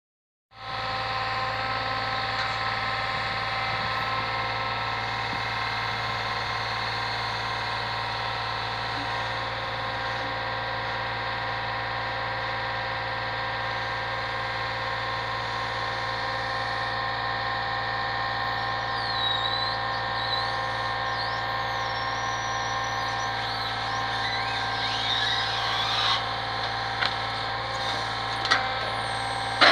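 Brick lorry's engine running steadily to drive the hydraulics of its truck-mounted crane, a constant mechanical drone with a whine, with a few brief high squeals partway through. Near the end come several short metallic knocks and clanks as the brick grab and its pallet are lowered, the last the loudest.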